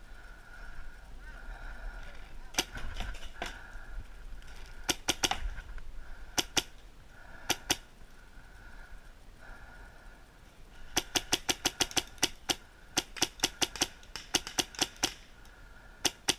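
Paintball markers firing: sharp pops in short volleys, with a fast string of about five shots a second beginning about two-thirds of the way in.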